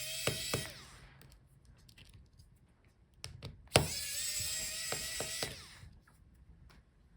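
Small electric screwdriver whining as it backs out laptop hinge screws: it stops about a second in and runs again for under two seconds from near the middle, starting with a click. A few light clicks of metal screws and tools come in between.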